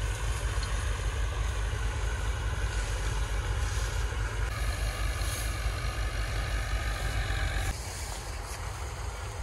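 A motor running steadily, with a low rumble and a hiss over it. The sound drops and changes abruptly about three-quarters of the way through.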